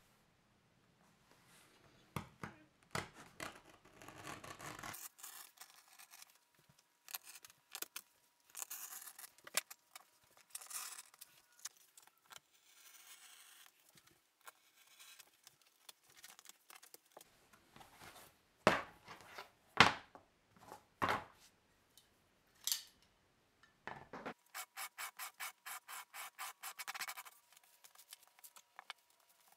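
Scratching, scraping and cutting sounds of hand leatherwork on thick leather: a pen scratching as it traces a pattern, and strokes of cutting through the leather. Near the end comes a quick run of about a dozen even strokes, roughly four a second, followed by plastic wrap crinkling as it is laid over a leather piece.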